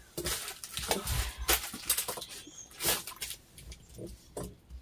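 Small plastic candy bags rustling and crinkling as they are rummaged through, with a few sharper crackles.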